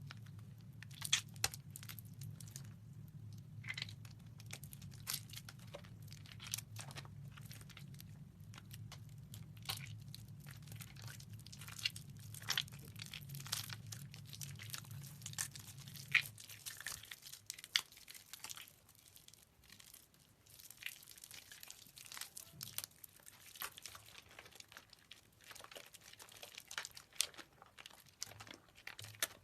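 Soaked soap being squeezed and crumbled by hand, a continuous run of wet crackling and crunching. A low steady hum underneath stops about halfway through.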